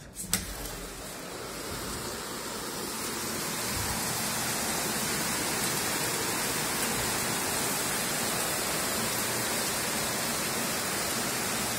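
Heavy summer downpour: a steady hiss of rain that grows louder over the first few seconds and then holds. A brief click sounds just after the start.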